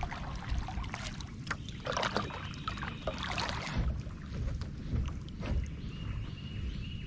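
Kayak paddle strokes dipping and splashing in the water at an irregular pace, over a steady low rumble.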